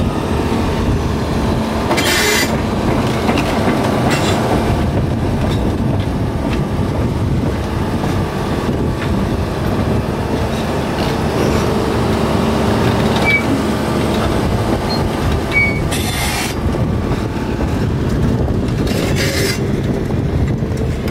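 Volvo EC300EL tracked excavator running close by: a loud, steady engine and hydraulic drone, broken by four brief hisses.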